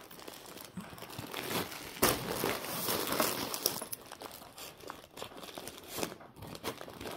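Plastic Amazon poly mailer bag crinkling and rustling in irregular bursts as it is handled and cut open with scissors, loudest about two seconds in.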